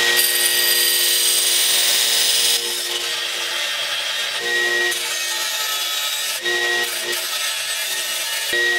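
A 2x72 belt grinder grinding a steel axe head forged from a railroad spike: a steady, loud abrasive hiss over the grinder motor's hum. The grinding eases a little after about two and a half seconds.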